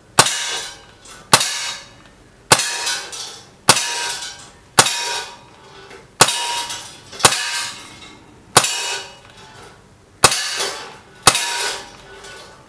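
Legends C96 CO2 blowback BB pistol firing ten single semi-automatic shots, about one every second or so with one slightly longer pause. Each shot is a sharp crack of the CO2 discharge and the blowback action cycling, followed by a short ringing tail.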